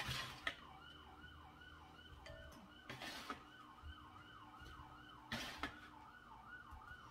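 A faint siren wailing in a fast repeating falling pattern, about three cycles a second. Three short scraping clatters of a plastic spatula on a metal baking tray cut through it: one at the start, one about three seconds in, and one about five and a half seconds in.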